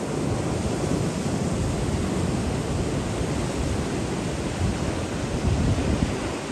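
Ocean surf breaking against rocks, a steady wash of noise that swells now and then, with wind buffeting the microphone.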